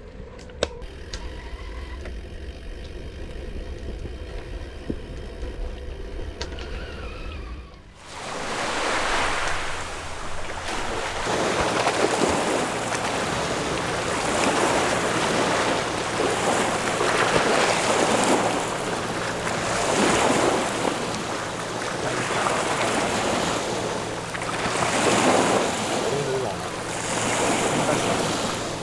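Sea waves washing against the shore, rising and falling in swells every few seconds, with a faint steady low hum beneath. Before this, for the first eight seconds or so, only a low rumble, which cuts off abruptly.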